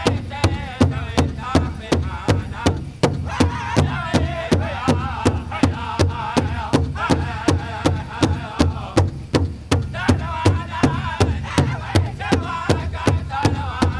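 Powwow drum group singing a jingle dress song: several voices singing together, high and wavering, over a big powwow drum struck in a steady, fast beat of about three strokes a second.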